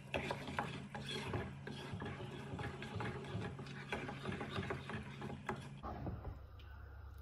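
A glass pot lid clinks as it is lifted off. Then a wooden spatula scrapes and stirs thick butter-chicken gravy in a coated pot, making a run of rasping scrapes and light knocks. A low hum underneath stops near the end.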